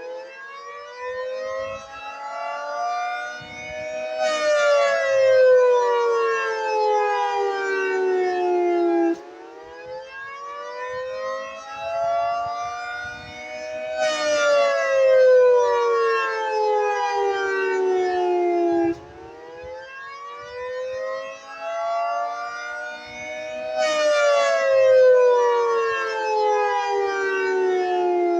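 Federal Signal 3T22 three-tone outdoor warning siren sounding the Attack signal: a wailing chord that rises in pitch for about four seconds, then falls for about five, repeating about three times. The loudness swells and fades as it goes.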